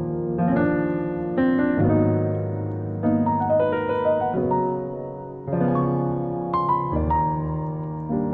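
Background music: slow, gentle piano playing sustained chords.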